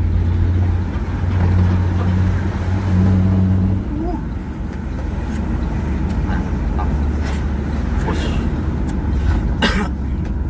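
Truck engine running with a deep, steady note that drops lower about four seconds in, with a short noisy burst near the end.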